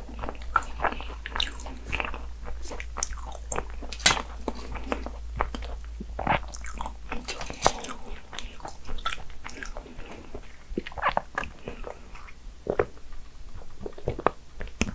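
Close-miked biting and chewing of a chocolate egg tart, with many irregular, sharp crunching clicks of the crisp pastry.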